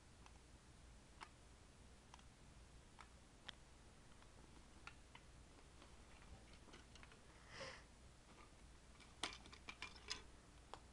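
Faint, scattered plastic clicks and knocks from handling the View-Master Model D's battery compartment and its D-cell batteries, with a brief rustle and then a quick run of sharper clicks near the end as a battery is pulled from the compartment.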